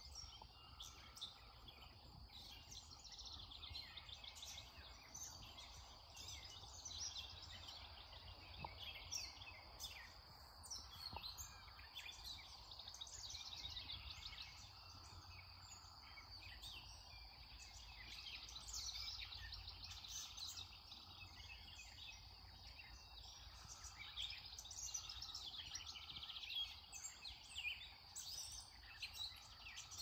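Dawn chorus: several birds singing at once, a continuous faint tangle of short chirps and trills, over a low steady rumble.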